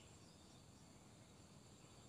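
Near silence: faint steady outdoor background hiss, with no bird call.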